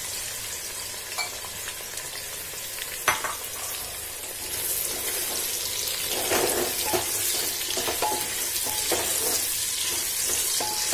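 Sliced onions sizzling in hot oil in a pressure cooker, with the hiss growing louder about four seconds in as they are stirred. A silicone spatula scrapes around the pot, with a sharp tap about three seconds in.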